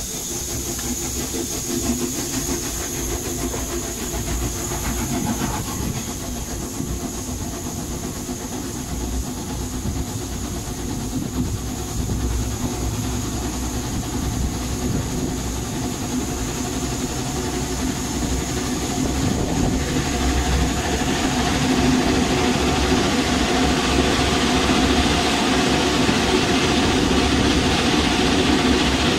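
Sentinel vertical-boilered steam locomotive under way, with a steady hiss of steam over the running noise of its wheels on the rails. The noise grows louder and fuller about two-thirds of the way through.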